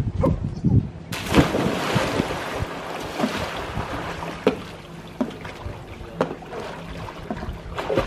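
A person jumps into a swimming pool with a sudden loud splash about a second in, then swims, the water splashing and sloshing with each stroke and kick.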